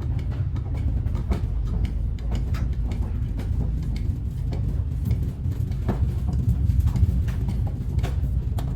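Blue-Point sliding-top tool cart being rolled on its casters: a steady low rumble with frequent small clicks and rattles.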